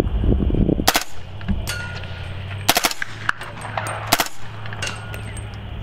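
Suppressed 300 Blackout AR carbine with a Dead Air Sandman Long suppressor, firing three single shots of subsonic ammunition about a second and a half apart. After the first and last shots a faint ring comes back from a steel target downrange.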